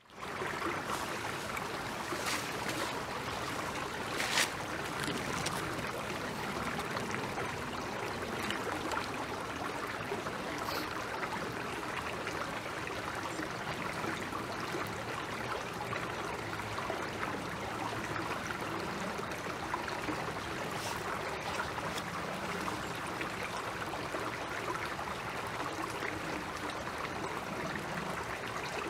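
Shallow rocky creek running steadily over and between stones, a constant burble of flowing water. A few brief clicks stand out, the strongest about four seconds in.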